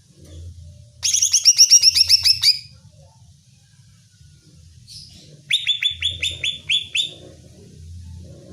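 Cucak ijo (green leafbird) singing: two bursts of rapid, evenly repeated sharp notes, about seven a second, each lasting about a second and a half, the second burst about three seconds after the first.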